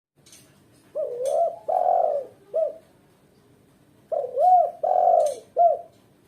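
Female spotted dove (tekukur) cooing: two three-note phrases, each two longer bending coos and a short final coo. This is a female's calling song, the kind used to lure and excite males.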